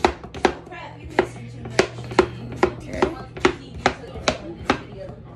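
Kitchen knife chopping a cucumber into slices on a wooden cutting board: a dozen or so even strokes, about two a second, each a sharp knock of the blade on the wood.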